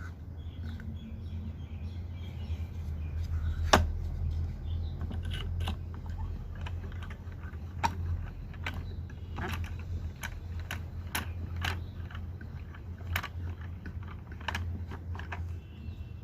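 Irregular light clicks and knocks, a dozen or so spread unevenly, the sharpest about four seconds in, over a steady low hum.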